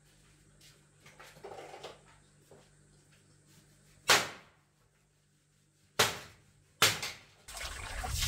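Three sharp wooden knocks as bamboo poles are struck with a block of wood, the first two about two seconds apart and the third a second later. Near the end, water pouring from a pipe starts splashing into a plastic basin.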